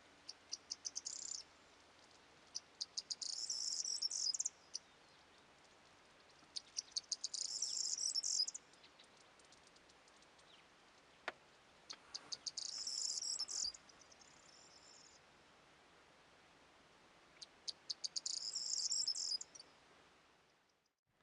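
A small songbird singing the same short, high-pitched song five times, each song opening with a few separate ticking notes that run into a fast twittering trill of about two seconds, with pauses of a few seconds between. The sound fades out near the end.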